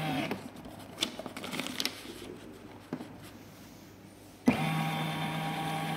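Schiller ECG machine's built-in chart printer running with a steady hum as it feeds paper, stopping about a third of a second in. A few light clicks and paper handling follow, then the printer starts again abruptly about four and a half seconds in.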